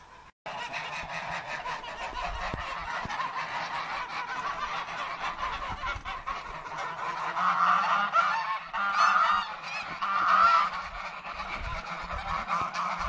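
A flock of domestic geese honking together, many calls overlapping in a continuous clamour that swells loudest several times in the second half.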